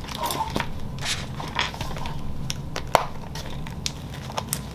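Paper pages and plastic dividers of a ring-bound planner rustling and clicking as it is handled and lifted, with a sharp click about three seconds in.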